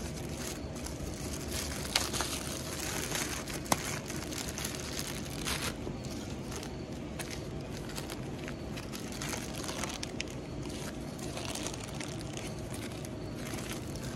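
Plastic parts bag crinkling and crackling as it is pulled and twisted to tear it open, the tough plastic stretching rather than ripping, with a couple of sharp clicks in the first few seconds.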